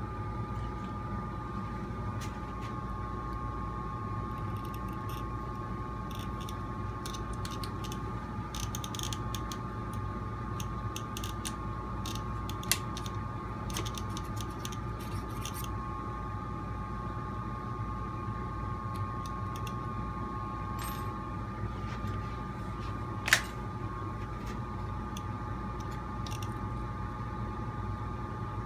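Light clicks and taps of small plastic and metal parts being handled on a Traxxas TRX4 RC crawler chassis, with two sharper clicks, one near the middle and one about three quarters through, over a steady hum.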